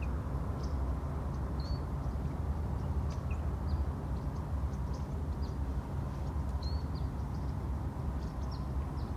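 Small birds chirping, short high calls scattered throughout, over a steady low rumble.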